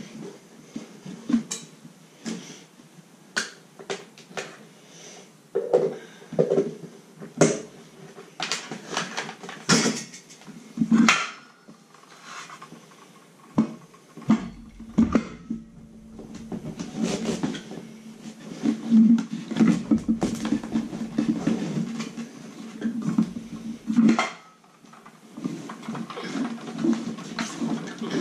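Repeated knocks, clunks and clicks of a circular saw and hand tools being handled on bare wooden floorboards. For several seconds in the middle there is a steadier sound with a low hum.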